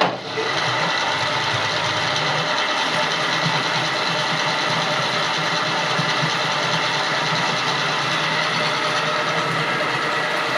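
A motor-driven machine switches on abruptly and runs steadily and loudly, with a constant low hum under a broad rushing noise.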